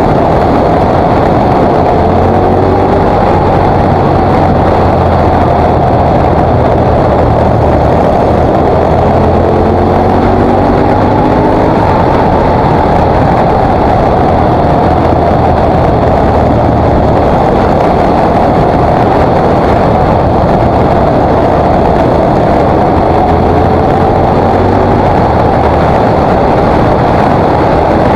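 A KTM 950 SMR's 942 cc V-twin engine running at road speed under a steady rush of wind on the bike-mounted microphone, with a few brief rising revs.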